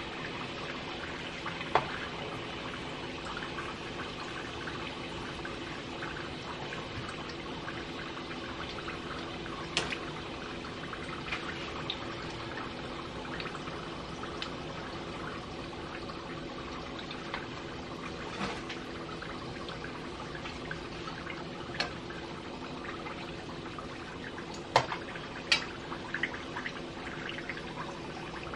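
Egg rolls deep-frying in hot vegetable oil: a steady bubbling sizzle. A few sharp clicks stand out, the loudest two close together near the end, as a metal skimmer touches the pot.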